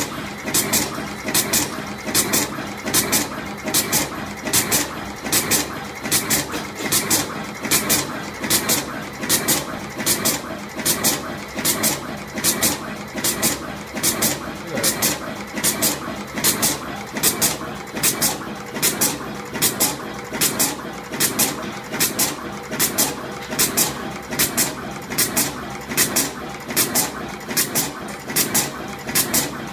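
Automatic single-head wire twisting and terminal crimping machine running through its cycle. A short, sharp hissing stroke repeats about every 0.8 seconds over a steady mechanical clatter as it turns out ultra-short crimped wires.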